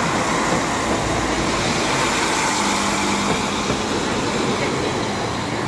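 Northern Class 195 diesel multiple unit departing a station platform: steady running noise of the train pulling away, with a faint steady engine tone in the middle.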